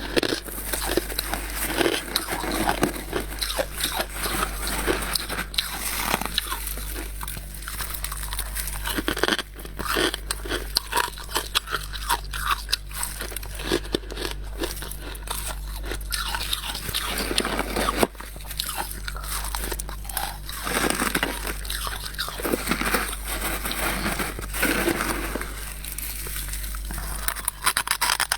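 Close-miked crunching and chewing of soft freezer frost, bite after bite, in dense crackly clusters.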